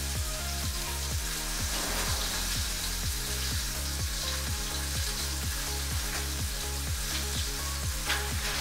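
Background music with a steady beat and a repeating bass line, over a steady sizzling hiss.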